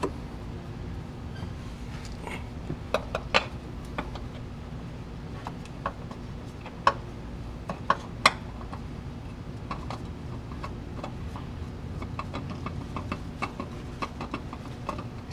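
Irregular clicks and light metallic taps as a new spin-on oil filter is fitted and turned by hand onto the engine's filter mount. The louder taps come about 3 to 8 seconds in, and quicker small ticks follow near the end, over a steady low hum.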